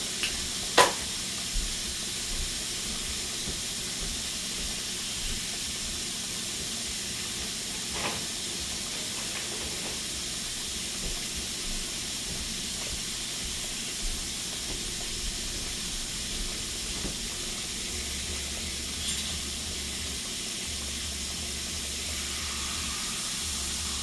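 Food frying in hot oil in a pan: a steady sizzle, with one sharp knock about a second in and a few fainter clicks after it.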